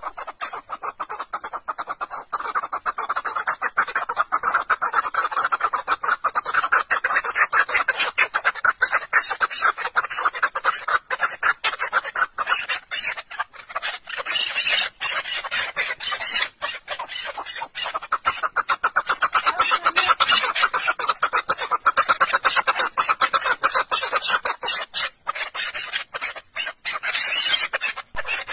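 Chukar partridge calling very rapidly, a fast unbroken series of short notes, many a second.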